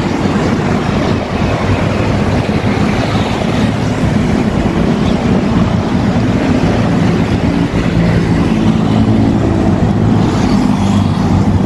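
Steady city traffic noise: the running of cars and motorbikes on a busy road.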